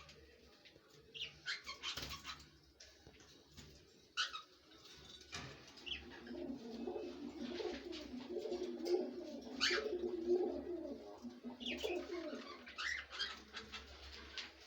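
Pet parrots calling: short, sharp high chirps and squawks several times, with a lower, warbling coo-like calling through the middle of the clip.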